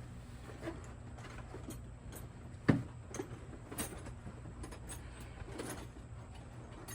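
Small parts and tools being handled during assembly: scattered light clicks and taps, with one sharp knock about three seconds in, over a steady low hum.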